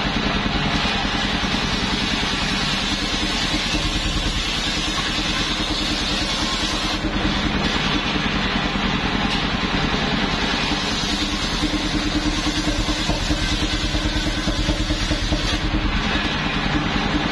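Engine-driven homemade circular sawmill running steadily, its large blade ripping planks lengthwise: a steady engine pulse under a continuous cutting hiss. The cutting noise briefly lets up about seven seconds in and again near the end.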